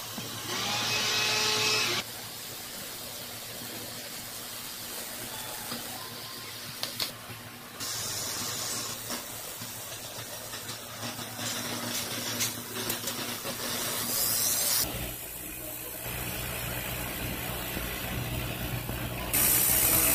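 A CNC cutting machine running, with hissing and a steady hum. The sound changes abruptly several times.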